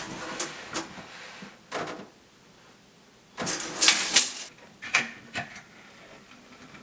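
Cedar boards being handled on a hard floor: a few light knocks, a louder scraping rustle of wood about halfway through, then a couple of sharp clicks.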